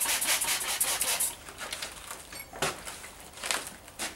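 Rapid scratchy rubbing that stops about a second in, followed by a few separate soft clicks.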